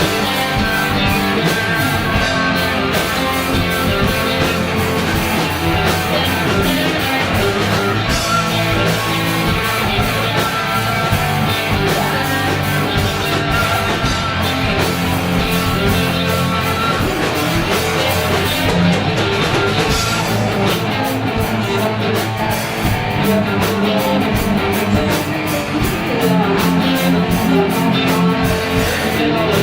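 Live rock band playing the instrumental opening of a funky original song, led by guitar over a steady drum beat, with no vocals yet.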